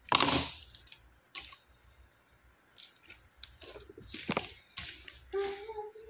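Rustling and soft knocks from hands handling the artificial tree's branches and ornaments close to the microphone, the loudest a short rush of rustling right at the start. Near the end a child begins humming a tune.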